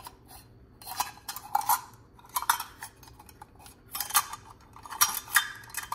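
Stainless steel measuring cups clinking and scraping against one another as the nested set is handled on its ring clip. The sound comes in several short clusters of metallic clinks.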